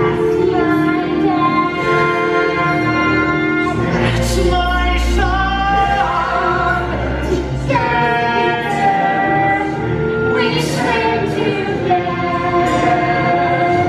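A stage-musical song: singers holding long notes over orchestral accompaniment, with a deep bass swell about halfway through.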